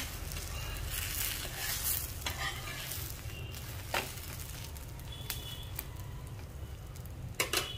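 Rava uttapam sizzling in oil on a hot nonstick tawa, with a few sharp clicks and scrapes of a metal spatula against the pan as the uttapam is flipped over.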